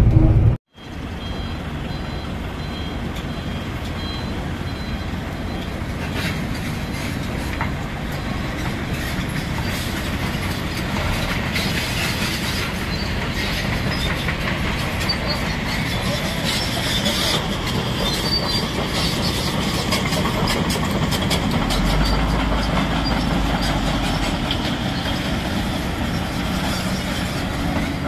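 Excavator and other heavy machinery running, after a brief dropout near the start: a steady mechanical din with continuous fine rattling clatter. A deeper engine rumble swells briefly about two-thirds of the way through.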